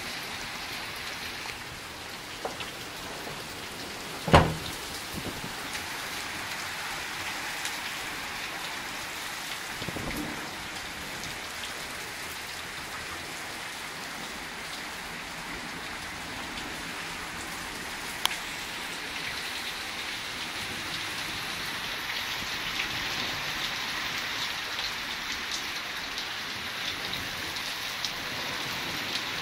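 Heavy thunderstorm rain pouring steadily, growing a little heavier in the last third. A single sharp knock about four seconds in is the loudest thing, with fainter knocks later.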